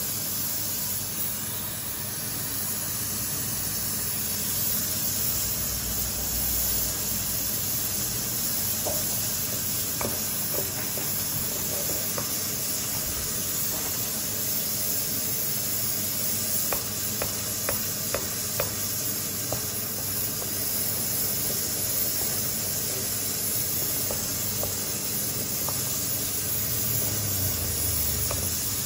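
Pressure cooker hissing steadily as steam escapes while it cooks under pressure. A wooden spoon knocks lightly now and then against the steel pot as thick dough is stirred.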